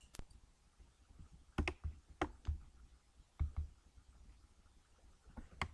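Computer mouse clicking: several sharp clicks at irregular intervals, some in quick pairs.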